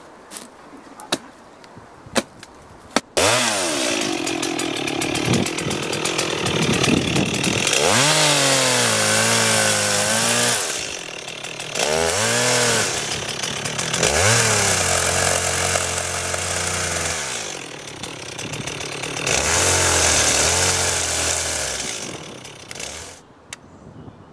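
A few faint clicks, then a two-stroke chainsaw revving hard and cutting into a hedge stem, a pleacher cut low on the trunk. The engine rises and falls, dropping back twice between bursts at full throttle, and stops about a second before the end.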